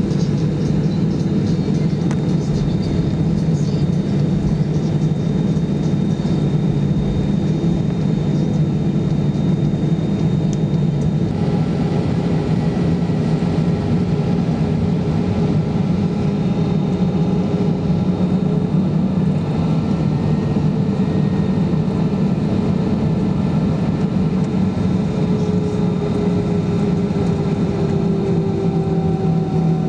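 Steady cabin noise of an Airbus A320-214 taxiing: a low hum of the CFM56 engines and air system, with thin whining tones above it. Faint tones slide slowly down in pitch near the end.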